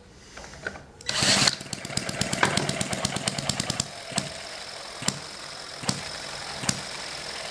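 A cordless drill with a friction-wheel starter briefly whirs against the flywheel of an M91 four-stroke vertical hit-and-miss model engine. The engine catches with a fast run of pops, then settles into hit-and-miss running: single sharp firing beats a little under a second apart, with the engine coasting between them.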